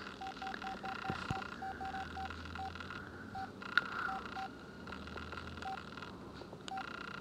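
Cell phone key tones as its navigation key scrolls through the menu: short beeps, all at one pitch, one for each press, a dozen or so, some in quick runs and some spaced apart.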